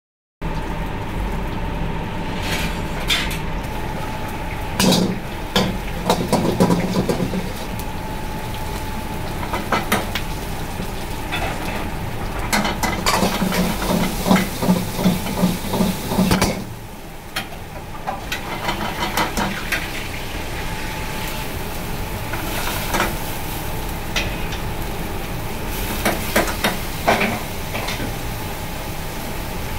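Food sizzling in hot oil in a wok while a metal ladle stirs and scrapes it, with the ladle clanking against the wok in repeated bursts.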